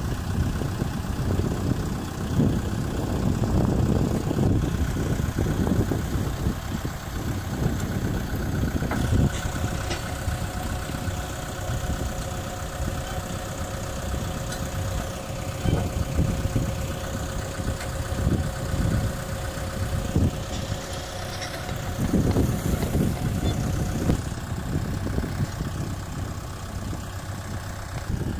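Kubota M6040SU tractor's diesel engine idling, with a few metal knocks as the disc plow's hitch linkage is worked on. A steady higher whine joins in from about nine seconds in to about twenty-four seconds.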